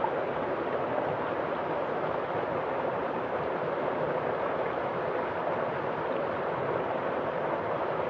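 Shallow rocky stream running steadily, water spilling over stones in a small cascade.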